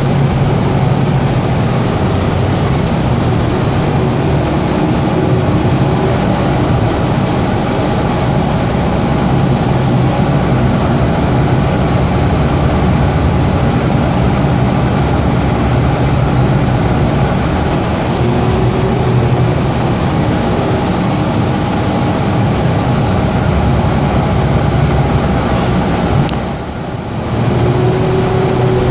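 Interior cabin noise of a Gillig Advantage hybrid transit bus under way: steady drivetrain hum and road noise, with the air conditioning running. Near the end the noise dips briefly, then a steady hum carries on.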